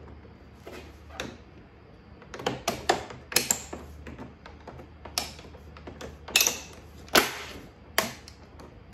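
Plastic fender side vent being pressed into a Range Rover Sport's front wing: a string of sharp plastic clicks and snaps as its clips seat, with a couple of short scrapes.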